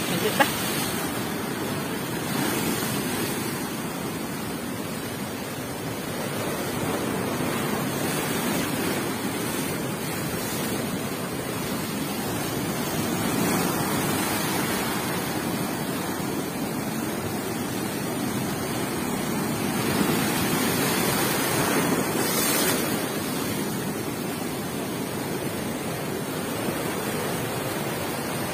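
Strong waves in a rough sea breaking against the shore and a wooden seawall: a continuous rush of surf that swells louder every several seconds.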